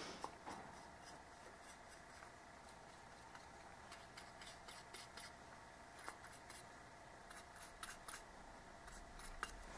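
Near silence broken by faint scratchy ticks and rubs of hands working a metal outboard water pump housing and brushing sealant onto it, in bunches around the middle and near the end, over a faint steady hum.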